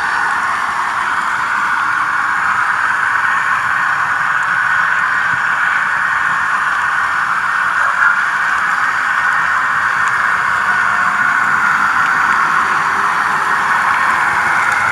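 HO-scale model electric locomotive (Trix/Märklin Ae 8/14) running, a steady hissing whine centred high with a pitch that sinks slightly near the end.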